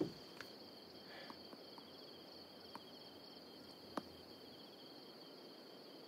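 Faint night-time crickets chirping in a steady trill, with a few soft clicks, one just at the start and one about four seconds in.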